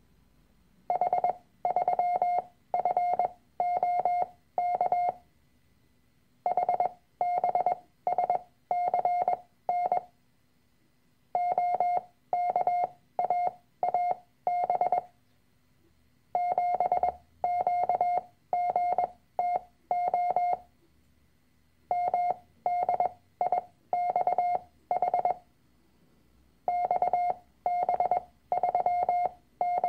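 Morse code practice tone keyed on and off: five-character groups of letters and figures sent as a steady mid-pitched beep, each group lasting about four seconds with a short pause between groups. It is sent at a fixed character speed with shortened gaps between characters, for copying by ear.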